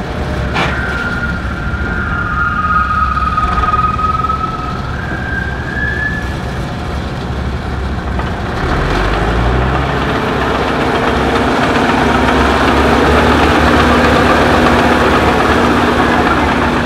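Antique Allis-Chalmers tractor engines running in a parade. About nine seconds in, one engine revs up and runs louder. A high wavering whistle-like tone sounds over the engines for the first several seconds.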